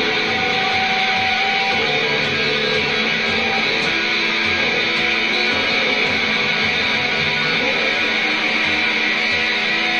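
Harsh noise-rock recording: heavily distorted electric guitar buried in a dense, unbroken wall of noise.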